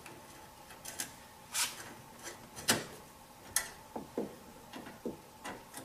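Phillips screwdriver backing out the screws of the headlight's plastic retaining trim: a string of light, irregular clicks and small knocks as the bit seats in and turns the screw heads and taps the trim.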